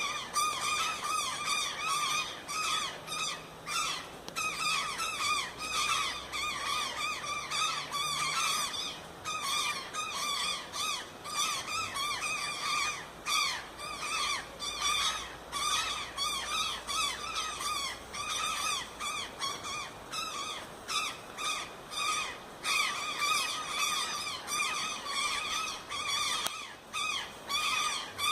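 Dense forest chorus of many birds calling at once: countless overlapping short, chirping calls that never let up.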